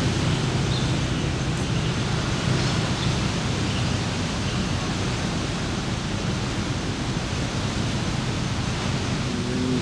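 Steady, even rushing noise of beach ambience, with no distinct events.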